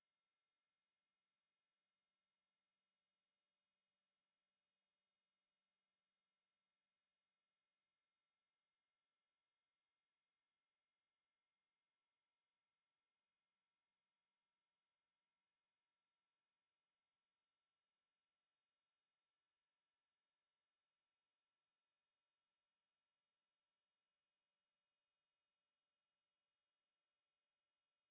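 A single steady 11076 Hz sine-wave test tone, a constant high-pitched whistle held at one pitch and level, played for a speaker test and speaker cleaning.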